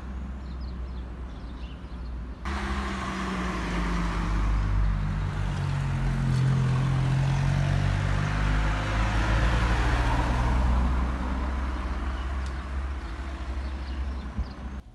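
A car driving past on a street: engine and tyre noise that starts abruptly about two and a half seconds in, is loudest through the middle and then fades, over a steady low rumble.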